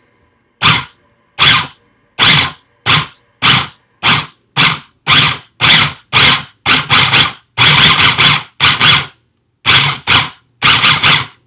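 Small electric food processor pulsed about twenty times, its motor and blade running in short bursts with silence between, the pulses coming faster and running longer toward the end as it chops and mixes the guacamole.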